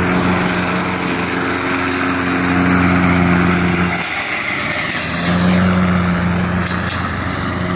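Riding lawn mower engine running steadily with the blades engaged as it drives over dry brush and rocky desert ground. The engine note drops away about four seconds in, then picks back up.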